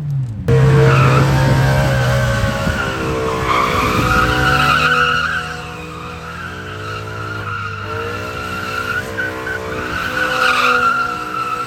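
Sports car engine held at steady high revs while the tyres squeal through a long slide, as in a drift. The revs dip briefly and recover about eight seconds in.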